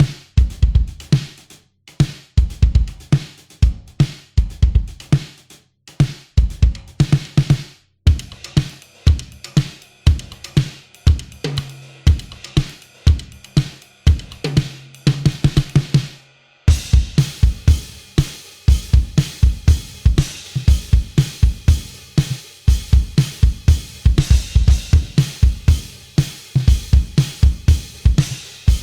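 Sampled gospel drum kit from the EZdrummer 3 Gospel EZX library playing a groove on kick, snare and hi-hat. About two-thirds through it stops for a moment, then comes back busier with more cymbal wash.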